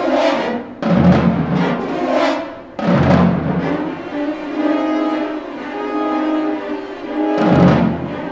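Orchestral film score: sustained orchestral chords punctuated by heavy, booming low drum strokes, about four of them a few seconds apart.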